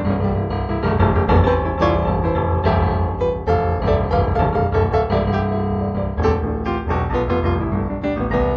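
Improvised solo piano music playing, a steady flow of notes over a sustained low bass.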